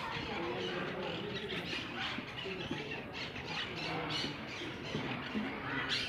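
Many captive parrots calling at once, a dense jumble of short overlapping calls.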